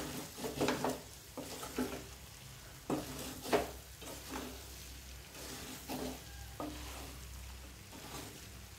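Metal spoon stirring and scraping spice-coated chicken pieces around a metal kadai, in irregular strokes, over a light sizzle of the chicken frying in oil.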